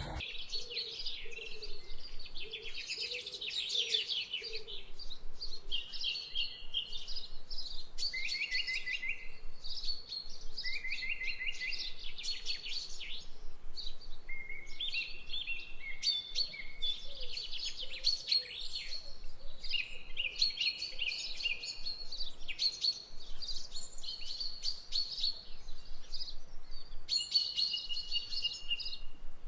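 Several birds calling and singing at once: a steady chorus of high chirps and rapid trills overlapping throughout.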